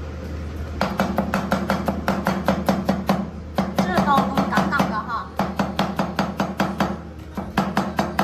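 Chinese cleaver chopping a green squash into thin strips on a bamboo cutting board: fast, even knocks of the blade on the board, about six a second, with a short break a little past three seconds in.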